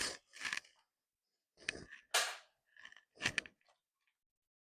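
A handful of short knocks and clicks, about six in three and a half seconds, as something is handled on the workbench.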